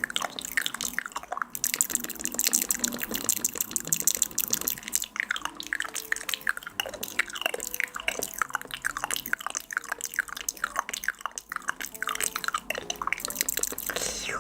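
Close-miked wet, drip-like sounds: a quick irregular run of small plops and clicks, each a brief sliding pitch.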